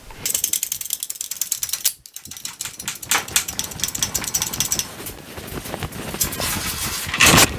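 Rapid mechanical clicking and rattling from a wheeled engine hoist being worked by hand while it holds a drum sander in lifting straps, with a brief pause about two seconds in and a louder noise near the end.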